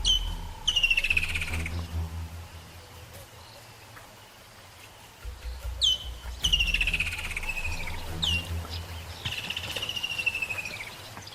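Birdsong: a bird sings three descending trilled phrases, each opened by a short sharp note, over a steady low rumble.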